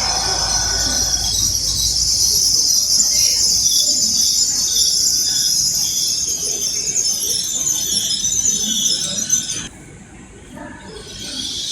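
Train wheels squealing on the rails as a train moves through the station, a steady high-pitched squeal that cuts out suddenly near the end and returns just after.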